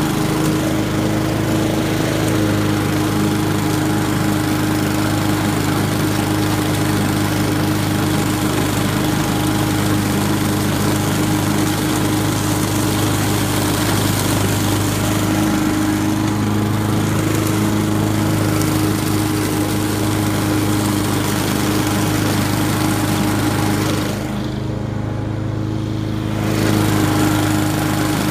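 Honda walk-behind lawn mower engine running steadily under load as the mower cuts through grass and fallen leaves. About 24 seconds in, the sound turns briefly duller and a little quieter for a couple of seconds, then comes back.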